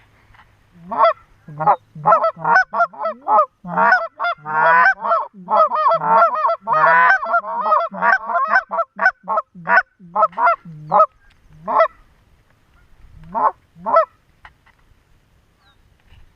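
Canada goose honking and clucking in a rapid, dense run of short calls. The calls thin out to a few last honks about two-thirds of the way in, then stop.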